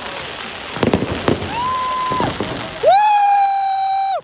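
Fireworks popping in sharp bangs, then two steady horn blasts: a shorter, higher one, followed by a louder, longer, lower one that cuts off abruptly.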